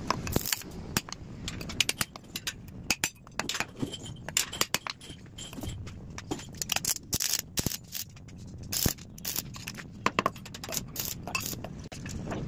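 Irregular sharp metallic knocks and clinks, some ringing briefly: a small hammer striking a sledgehammer's steel head to seat it on a square steel tube handle, with metal parts knocked and handled on a concrete floor.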